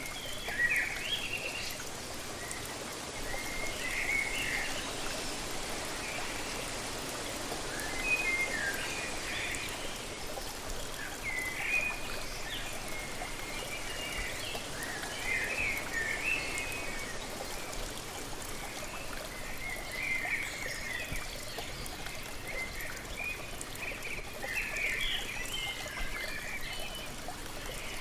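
Steady rush of falling water from a waterfall, with birds chirping in short bursts every few seconds over it.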